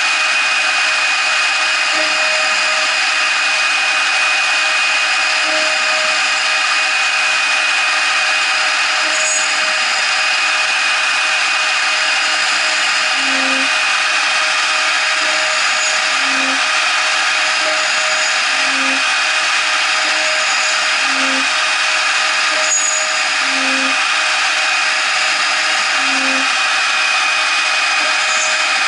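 A 0.75 kW CNC router spindle running with a steady high whine as a 2 mm end mill cuts aluminium angle in shallow passes. From about the middle on, short low tones from the machine repeat about every two and a half seconds.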